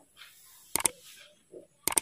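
Two sharp mouse-click sound effects about a second apart, each a quick double click, from the animated subscribe-button overlay, over a faint rustle of movement.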